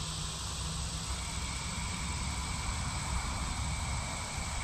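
Steady outdoor background: a continuous low rumble under a steady, high insect drone.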